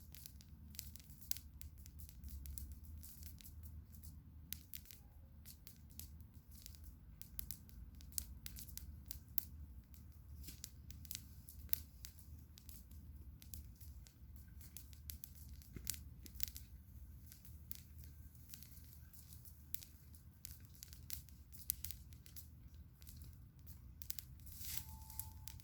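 Campfire crackling: irregular sharp pops and snaps of burning wood over a low steady rumble.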